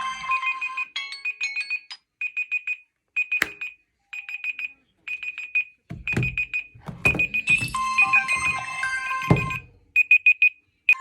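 Smartphone ringtones and alarm tones playing one after another. A melodic tone stops about a second in and gives way to short bursts of high electronic beeping, repeating about once a second. A fuller melodic ringtone with low notes comes in past the middle, and the beeping returns near the end.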